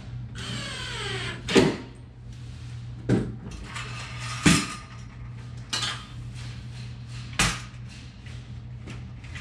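A metal vertical-blind headrail and its brackets being handled: a falling, squealing scrape near the start, then a handful of sharp knocks and clanks spaced a second or so apart, over a steady low hum.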